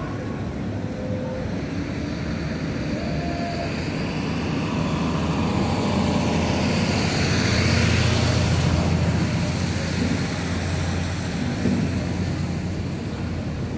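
A vehicle passing close by on a city street, its rumble swelling to a peak about eight seconds in and then fading away.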